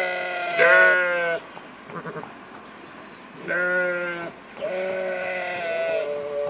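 Sheep bleating four times: two bleats in quick succession at the start, then two more from about three and a half seconds in, the last one drawn out.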